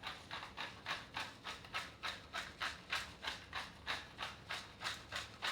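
Seasoning being dispensed by hand onto pork belly: a steady run of short rasping strokes, about four a second, as black pepper and salt are ground or shaken over the meat.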